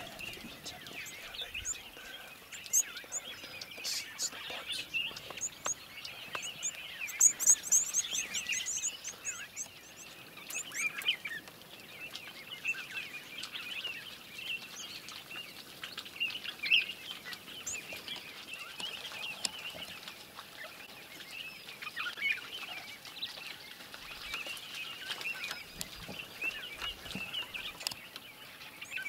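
Many wild birds chirping and calling around a waterhole, a steady chatter of short calls. A flurry of rapid high-pitched chirps comes about seven to nine seconds in.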